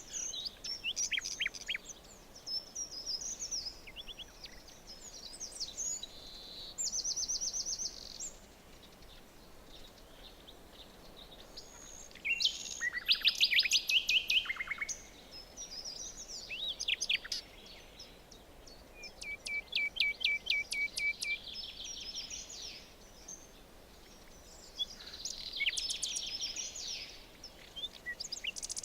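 Several songbirds singing in a forest, their songs overlapping: quick down-sweeping notes, rapid trills and runs of repeated notes, coming in phrases a few seconds apart. The loudest phrases come about halfway through.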